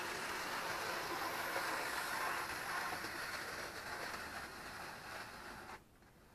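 Hornby OO gauge Class 101 DMU model running on track, its motor and wheels giving a steady whirring rush that slowly fades as it draws away, then drops off suddenly near the end.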